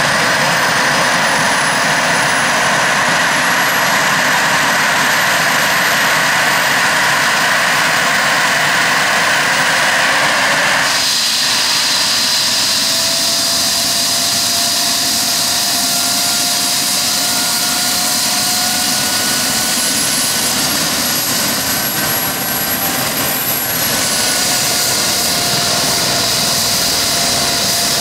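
Airbus H135 P3 helicopter's twin turboshaft engines running on the ground as the main rotor spins up: a steady, loud turbine whine whose high tone rises slowly. About eleven seconds in the tone changes abruptly, and a lower whine then climbs gradually.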